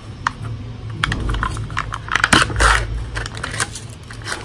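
Fingers picking at and peeling the foil seal off a plastic jar of hair cream: a run of small clicks and crinkles, with a longer tearing rustle about two and a half seconds in.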